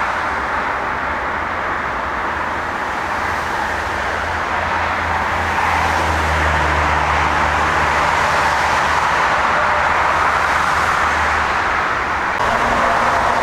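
Jet airliner engines running with a steady, loud rush, with a low hum that swells through the middle and eases off near the end.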